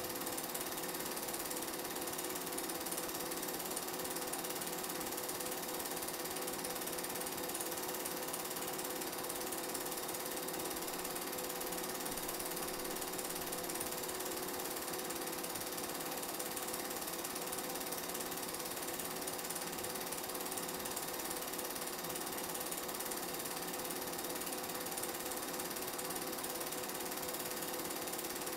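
Film projector running: a steady mechanical clatter from its film-advance mechanism with a low hum underneath, unbroken throughout.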